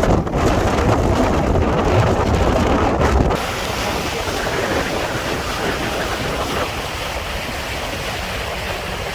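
Wind buffeting the microphone heavily, which cuts off suddenly after about three seconds and leaves a steady rushing hiss of wind and water.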